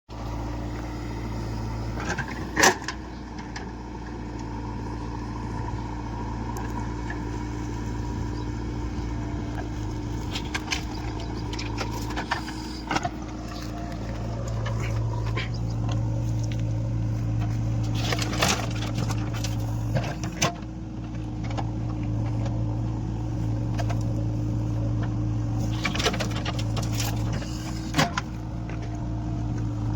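Diesel engine of a JCB backhoe loader running steadily as it loads a dump truck, the engine note rising about halfway through. About half a dozen sharp knocks come through over the engine, a few seconds apart.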